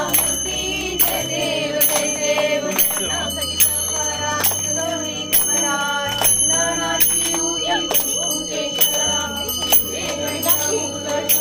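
Background music with a steady beat about twice a second and a bass line that steps between notes.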